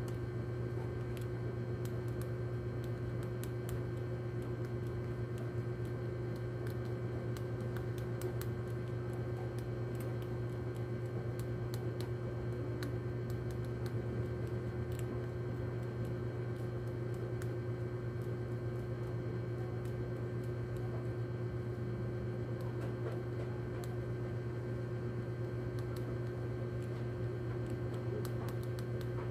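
A steady low mechanical hum runs throughout, and over it come faint, irregular, crisp clicks: a rat nibbling at rodenticide bait pellets.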